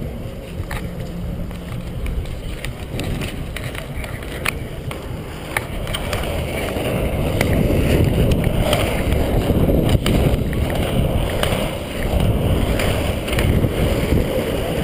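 Steady rumble of inline skate wheels rolling on asphalt, mixed with wind buffeting the moving microphone, with sharp clicks now and then. It grows louder about halfway through.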